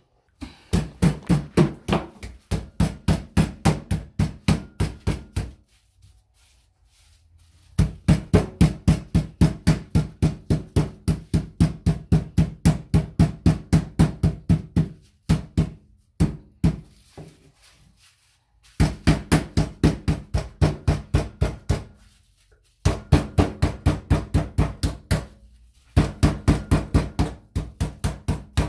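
Rolling pin pounding chicken flat through plastic wrap on a cutting board: quick repeated thuds, about four a second, in several runs broken by short pauses.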